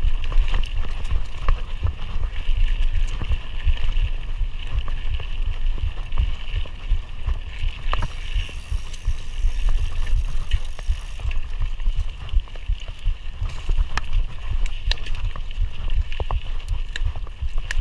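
Mountain bike ridden over a rough dirt trail: a steady low wind rumble with frequent short knocks and rattles from the bike over bumps.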